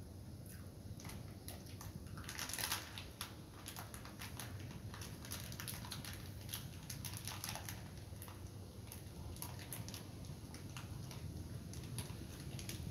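Small crunches and clicks of a person eating a crunchy snack by hand, with one louder crackle about two and a half seconds in.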